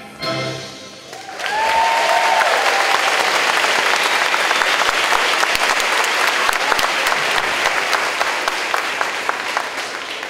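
Audience applauding, dense clapping that swells about a second in and slowly thins out, with a brief high cheer near the start.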